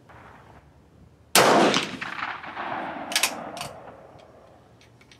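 One shot from a Swiss K31 straight-pull rifle firing 7.5x55 mm Swiss, a reload in GP11 brass, about a second in. The loud report echoes and fades over about two seconds. Then come two sharp metallic clicks as the straight-pull bolt is worked back to extract the case.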